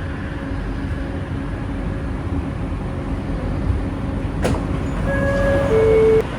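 Bombardier Innovia ART 200 metro train running, a steady rumble heard from inside the car. About four and a half seconds in there is a sharp click, then a two-note falling chime near the end.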